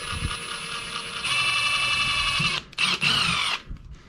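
Cordless drill spinning a 1/8-inch bit through a plastic steering-column cover to bore a pilot hole: a steady motor whine that gets louder about a second in, stops, then runs once more briefly near the end.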